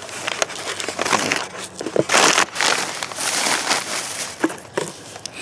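Packaging crinkling and rustling as it is handled, a dense run of small crackles and clicks, loudest a little past two seconds in.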